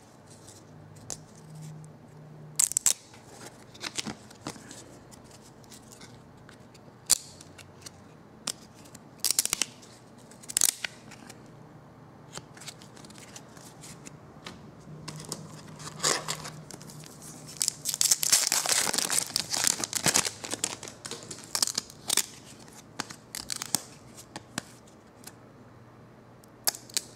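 Trading cards being handled, with short sharp paper snaps and flicks, then a card pack's wrapper being torn open and crinkled for a few seconds about two-thirds of the way through.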